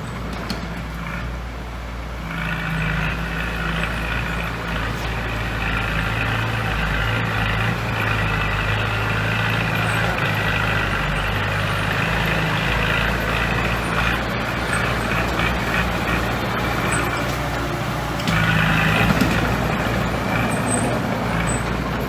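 Heavy diesel construction machinery engine running steadily, with a higher-pitched whine that joins about two seconds in and gets louder about eighteen seconds in.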